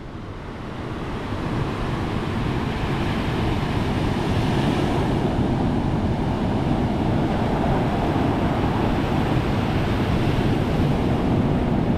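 Ocean surf breaking and washing up a pebble beach, with wind on the microphone. It builds over the first two seconds, then holds as a steady rush.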